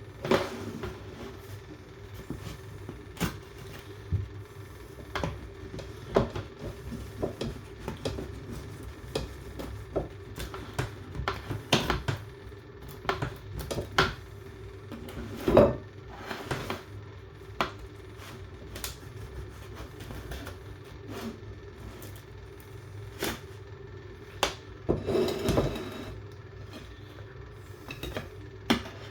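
Irregular knocks, clicks and clatters of household objects being handled and set down, over a steady low hum.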